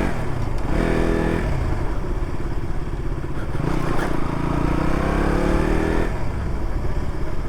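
KTM Duke motorcycle engine running at low road speed, heard through a mic inside a closed-visor helmet. Its pitch rises from about three seconds in and falls back at about six seconds.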